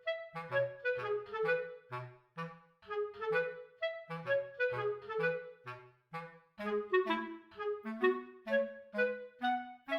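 Background instrumental music: a steady run of short melodic notes over a bass line.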